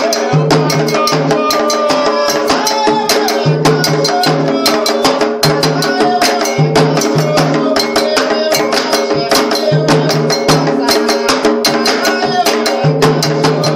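Candomblé song for Ossaim: atabaque hand drums and other percussion keep a steady, dense rhythm under singing.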